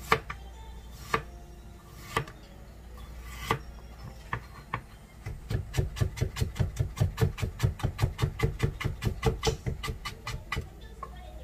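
Kitchen knife cutting vegetables on a plastic cutting board: a few separate cuts about a second apart, then from about halfway a quick, even run of chops, about five a second, stopping shortly before the end.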